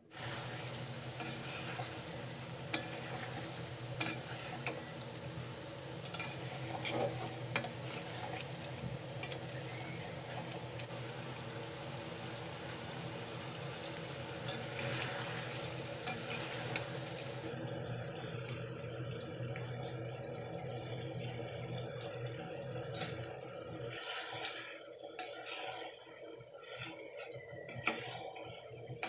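Chicken curry sizzling and bubbling in an aluminium pot while a metal spatula stirs it, clinking and scraping against the pot. About five seconds before the end the steady sizzle drops away and broken scraping and clinking from stirring rice into the curry take over.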